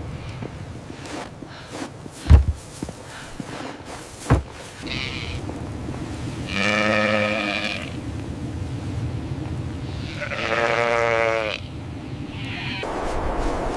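Sheep bleating twice, each call about a second long, the second one wavering. Two dull thumps come earlier, the first being the loudest sound.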